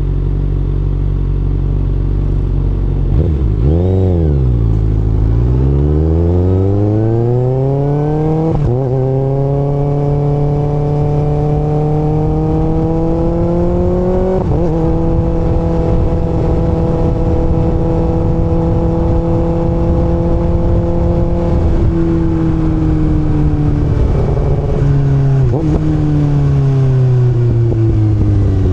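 Kawasaki ZX-6R inline-four motorcycle engine idling, blipped once, then pulling away with its pitch climbing and dropping at gear changes about 9 and 14 seconds in. It holds a steady cruise, then eases off with the revs falling near the end.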